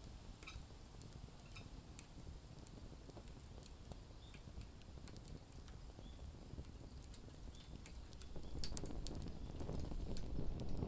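Wood campfire crackling, with scattered sharp pops and snaps over a low rumbling hiss. The rumble grows louder about eight seconds in.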